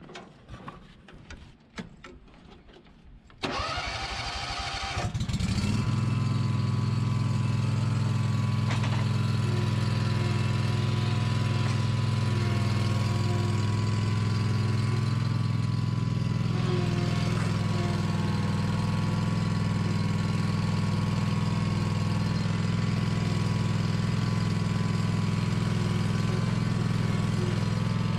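Scag V-Ride 2 stand-on mower engine cranking and catching about three and a half seconds in, then running steadily.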